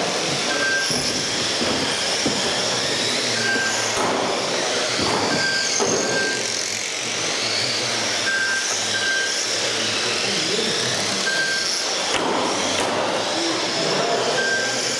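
Electric RC touring cars racing on carpet: the whine of their motors rises and falls as they accelerate and brake through the corners. Short electronic beeps come at irregular intervals, typical of a lap-timing system as cars cross the line, and there are a few sharp clicks.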